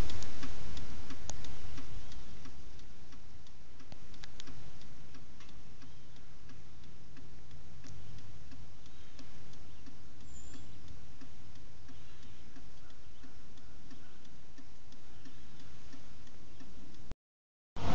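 A car's hazard flashers (four-way lights) ticking in a steady, even rhythm, the 'bink-bink' of the flasher relay while the car sits parked.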